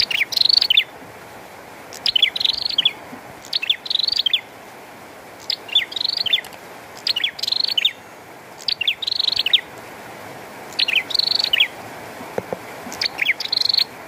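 Caged prenjak singing a short, fast chirping phrase over and over, eight times about a second and a half apart, over a steady hiss of falling rain.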